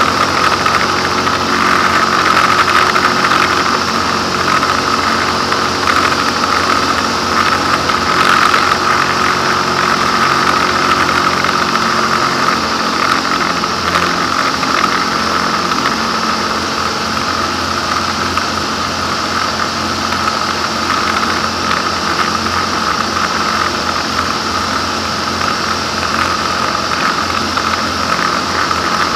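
Ultralight aircraft's engine and propeller running steadily in cruise, heard from inside the cockpit.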